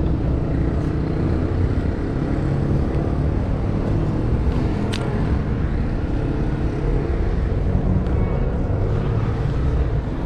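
Steady low rumble with rubbing and rustling as a body-worn camera presses against a cotton sweatshirt during a pat-down search, with one short sharp sound about halfway through.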